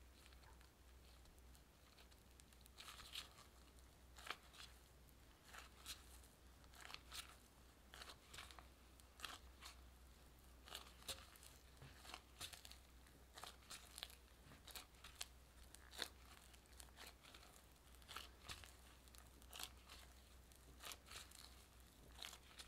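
Faint sticky squelches and crackles of a gloved hand squeezing and kneading soft butter into bread dough, coming irregularly, about one to two a second.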